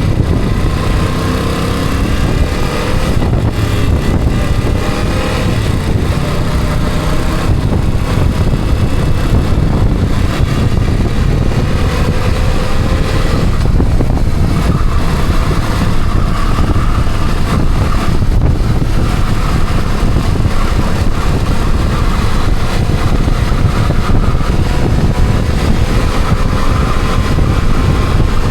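Vehicle engine and road noise while driving. The engine note rises as it accelerates over the first few seconds and again near the middle.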